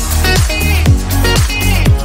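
Background electronic dance music with a steady kick drum, about two beats a second, and synth notes; no singing.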